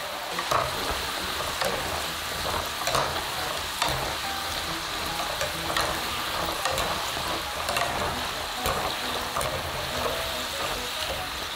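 Potatoes deep-frying in hot oil: a steady sizzle broken by frequent, irregular sharp pops and crackles.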